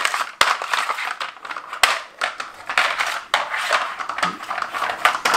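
Stacked plastic dog treat puzzle being pawed and nosed by a puppy, its spinning layers clattering, clicking and scraping against a hard floor in an irregular run of knocks.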